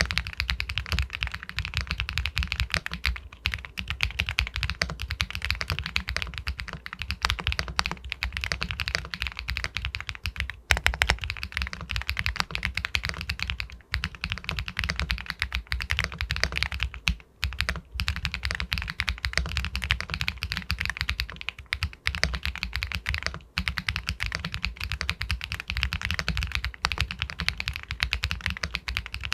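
Continuous fast typing on an Epomaker Galaxy 80 Pro full-aluminium mechanical keyboard with White Jade linear switches: a dense run of pebble-like keystroke clacks, with brief pauses about 14 and 17 seconds in.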